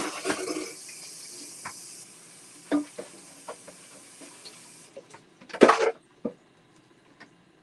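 Kitchen faucet running into a sink, with dishes clinking now and then. The water stops about five seconds in, followed by a short, loud burst of clatter.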